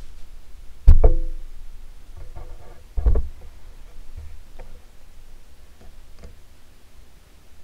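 A few sharp knocks and clicks. The loudest comes about a second in and rings briefly, another strong knock follows about three seconds in, and fainter clicks come later.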